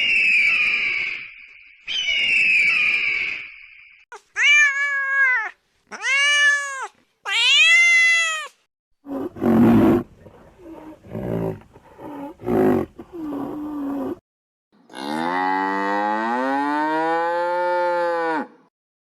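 A string of different animal calls: two high calls at the start, three short arching calls that rise and fall, a cluster of short low calls, then one long low call that dips and rises again, held for about three and a half seconds.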